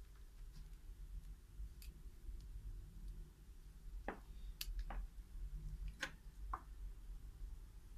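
Faint scattered clicks and taps, about six in all and mostly in the second half, as small parts (steel wire, beads and a thread spool) are handled on a wooden board, over a low steady hum.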